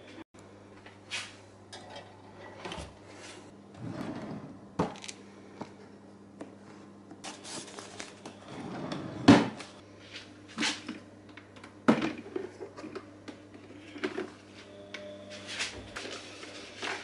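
Kitchen handling sounds as a drip coffee maker is made ready: a drawer opening and closing, paper coffee filters rustling, and the machine's plastic lid and filter basket clicking and knocking, with the loudest knock about nine seconds in. A steady faint low hum runs underneath.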